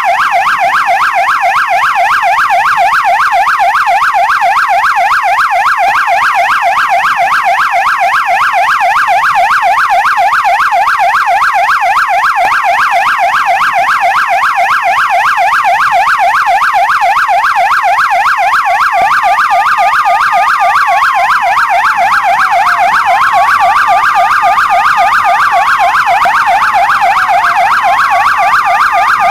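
Police siren sounding continuously in a fast yelp, its pitch warbling up and down several times a second. About two-thirds of the way through, a slower wail joins over it, rising, holding high and sliding down again every few seconds.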